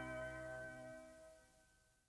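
The final held chord of a TV show's opening theme song, ringing out and fading to silence about a second and a half in.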